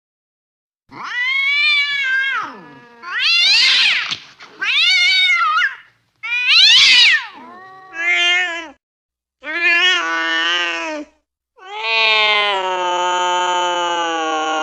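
Domestic cat yowling angrily: about seven drawn-out calls that swell and bend up and down in pitch, starting about a second in, the last one held longest.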